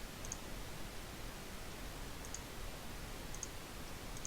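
Computer mouse buttons clicking: four faint double clicks, each press and release heard close together, spaced about a second apart, over steady microphone hiss.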